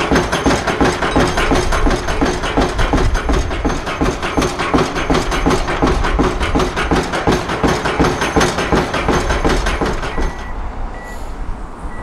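Pile-driving rig's hydraulic impact hammer driving a concrete pile into the ground: rapid, even pounding, about four to five blows a second. It stops abruptly near the end, leaving wind on the microphone.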